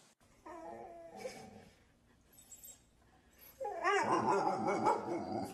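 A dog calling out in two bouts of wavering calls that bend up and down in pitch: a shorter one about half a second in, and a louder, longer one from about three and a half seconds in.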